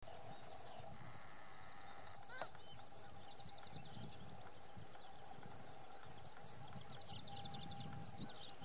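Birds calling across the mudflat: many short high chirps, with two rapid trills of quickly repeated notes. Underneath is a low, uneven rumble, and there is one sharp click about two and a half seconds in.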